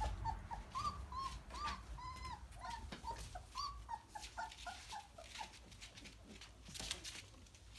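Young puppies whimpering and squeaking: many short, high, rising-and-falling cries in quick succession, thinning out after about five seconds. Scratchy rustling follows near the end.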